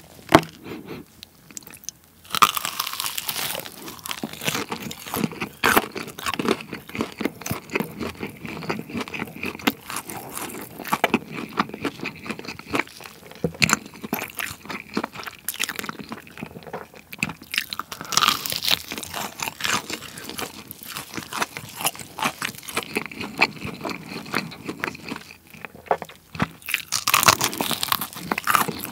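Close-miked crunching and chewing of crispy fried chicken coated in spicy cheese seasoning powder. The crust crackles almost continuously, and louder crunching bites come about two seconds in, around eighteen seconds and near the end.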